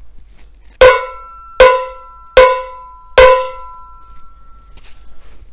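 Handheld cowbell struck four times with a wooden drumstick, evenly spaced a little under a second apart, each hit ringing on briefly and the last ringing longest.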